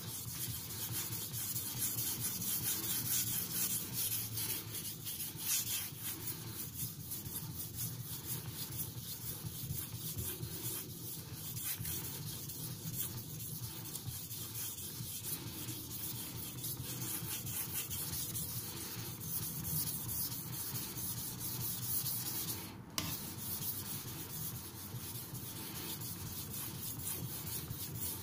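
Carbon-steel nakiri blade (Tojiro Shirogami) being stroked back and forth on a wet King 6000 grit waterstone, a steady run of rubbing, scraping strokes. It is the fine polishing stage of the sharpening, cleaning up the bevel.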